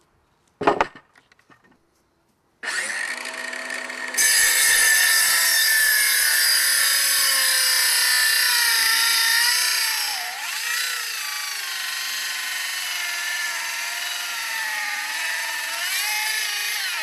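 A DeWalt circular saw starts up about two and a half seconds in and cuts across a pressure-treated 2x12 board, getting louder as the blade goes into the wood. Its motor pitch dips now and then under load. A single sharp knock comes shortly before the saw starts.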